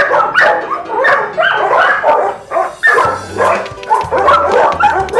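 Several shelter dogs barking in their kennels: rapid, overlapping barks and yips that come several times a second without a break.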